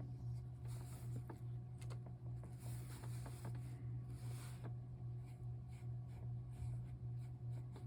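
Water brush stroking across watercolour paper: a few soft swishes in the first half, with small ticks and taps of the brush. A steady low hum runs underneath throughout.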